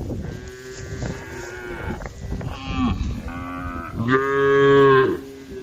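Cows mooing, several calls one after another and overlapping, some bending in pitch. The loudest is a long moo about four seconds in that lasts about a second.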